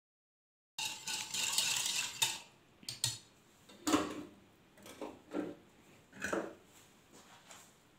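Metal wire whisk clattering fast against a ceramic bowl for about a second and a half, then about half a dozen separate clinks and knocks of utensils and dishes.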